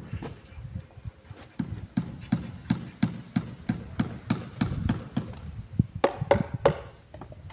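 Repeated dull thuds, about three a second, of a hand tool pounding at the base of a concrete column, with a few sharper, brighter knocks near the end.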